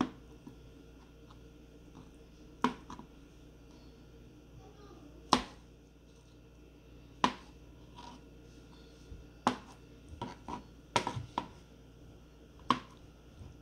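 Kitchen knife cutting through peeled hard-boiled eggs and knocking on a plastic cutting board: about ten sharp knocks, irregularly spaced a second or two apart, with a quick cluster of lighter taps about two-thirds through.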